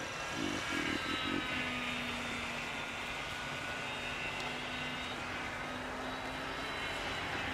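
Multiplex FunCub RC model plane's electric motor and propeller in flight: a whine that rises and falls in pitch as the plane manoeuvres. Four short low bumps come about half a second to a second and a half in.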